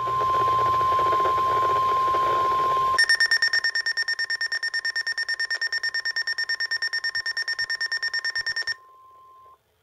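Weather-alert radio sounding a NOAA Weather Radio alert. A steady high warning tone plays over static for about three seconds. The radio's own alarm then takes over as a rapid beeping, about nine beeps a second, which stops suddenly about a second before the end, leaving the tone faint for a moment before it cuts off.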